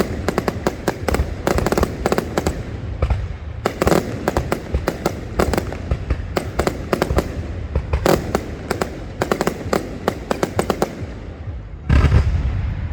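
Fireworks going off: a rapid, irregular run of crackling bangs over a low rumble, with a louder boom about twelve seconds in.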